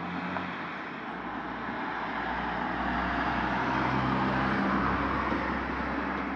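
A vehicle passing: a rushing noise with a low rumble that swells over a few seconds and then fades.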